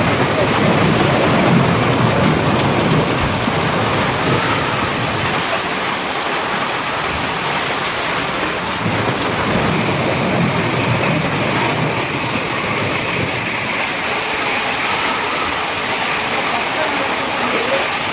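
Hailstorm: hailstones and heavy rain pelting down onto surfaces in a dense, steady clatter, a little louder in the first few seconds.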